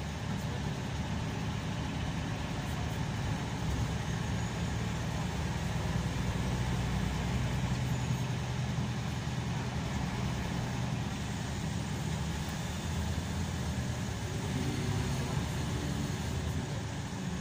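Scania K340EB coach's rear-mounted diesel engine and road noise heard from inside the passenger cabin as the coach drives: a steady low drone with road hiss over it.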